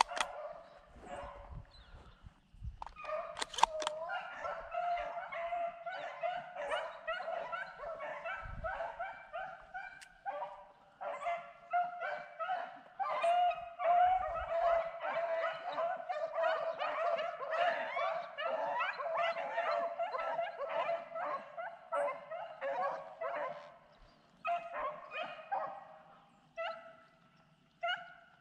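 A pack of rabbit-hunting dogs baying and yelping together while running a rabbit. The overlapping bays start about three seconds in, run on steadily, and thin out to scattered calls near the end.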